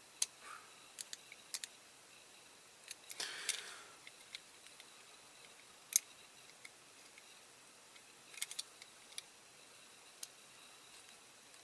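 Faint, scattered small clicks and ticks of a tool and fingers on a diecast toy car's metal body, with a short scrape a little over three seconds in and a quick cluster of clicks near eight and a half seconds, as a door is worked forward to free it.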